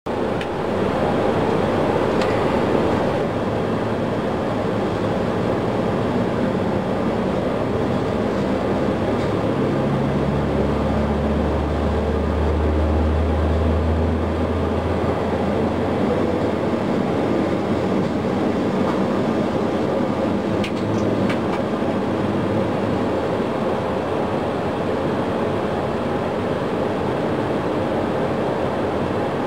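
Boeing 737 engine noise during an engine start: a steady rumble and rush that comes in suddenly, with a low hum from about 10 to 15 seconds in. The starting engine's core (N2) is spinning up while its fan (N1) stays at zero, the no-N1-rotation abnormal start.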